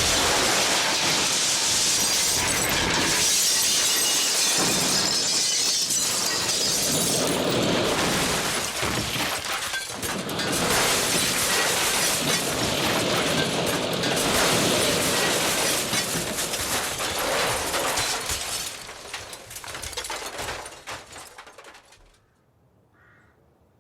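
Glass shattering and debris crashing down after a house explosion: a long, dense crashing clatter that thins out and dies away about twenty seconds in.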